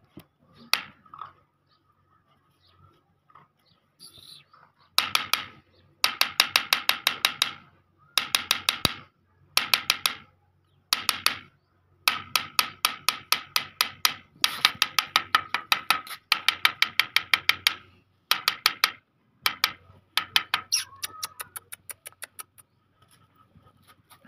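Rapid runs of sharp taps or clicks, about eight a second, in bursts of one to three seconds with short gaps between them.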